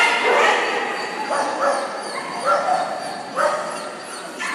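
Dog barking repeatedly, a run of short high-pitched barks with pauses between them.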